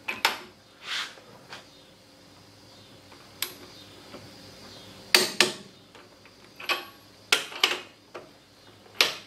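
MAC click-type torque wrench being pulled on leaf-spring U-bolt nuts at a 130 ft-lb setting: a string of sharp metallic clicks from the wrench and its ratchet head, about nine in all, some in quick pairs.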